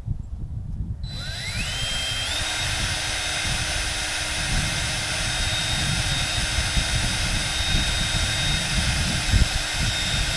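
A 20-volt cordless drill spinning up about a second in with a rising whine, then running steadily at high speed as its bit drills a hole through the aluminum gunwale of a jon boat.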